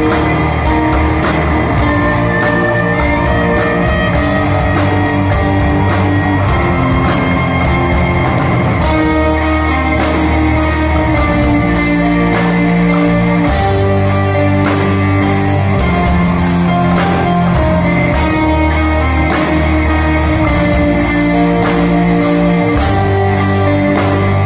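Live rock band playing: electric guitars and bass over a steady drum-kit beat, the bass notes coming in heavier about nine seconds in.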